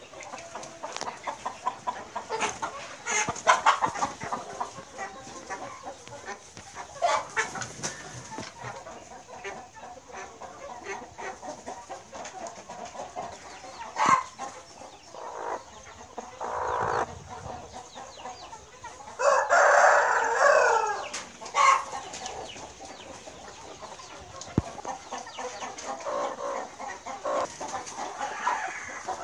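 Chickens clucking on and off, with a rooster crowing once for about two seconds, the loudest sound, about two-thirds of the way through.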